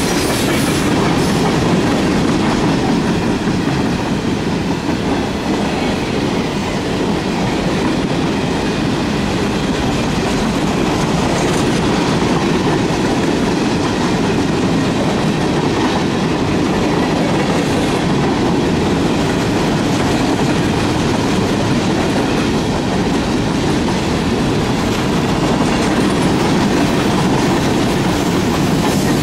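Freight cars of a mixed freight train rolling past at close range: covered hoppers and tank cars, then loaded high-sided trash gondolas. Their steel wheels make a steady rumble on the rails.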